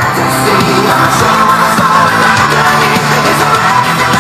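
Music with vocals played loudly through a pair of Panasonic SB-AFC286 shelf speakers during a speaker test.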